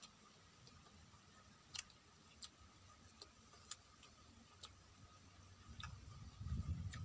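Faint eating sounds: a handful of short, soft clicks at uneven spacing from chewing and lip smacks, with a low rumble coming up near the end.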